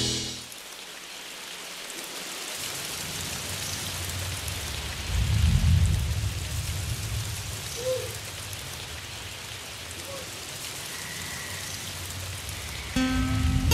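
Steady hiss of rain with a low rumble of thunder about five seconds in, most likely a rain-and-thunder sound effect.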